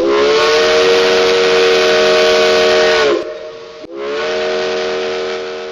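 Steam locomotive whistle sounding a chord over a hiss of steam, in two long blasts. The first blast lasts about three seconds and ends with a slight drop in pitch. The second starts about a second later and slowly fades away.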